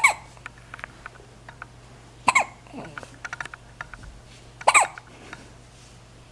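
Three loud hiccups about two and a half seconds apart, each a sharp squeaky yelp that falls in pitch, with faint clicks in between.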